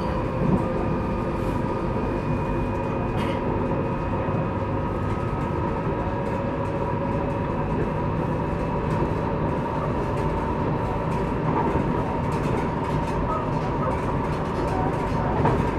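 CAF Civia electric commuter train with Siemens traction converters running, heard from inside a passenger car: a steady rumble of the running gear with thin steady whining tones from the converters and traction motors. A higher whine fades out about four seconds in.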